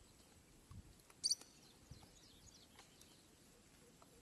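A bird gives one short, high-pitched chirp about a second in, over a quiet background with a few faint ticks.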